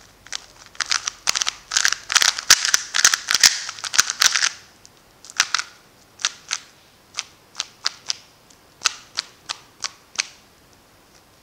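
Weilong GTS v2 M magnetic 3x3 speedcube being turned by hand, its plastic layers clacking: a fast run of turns for about four seconds, then slower single turns every half second or so, stopping about a second before the end.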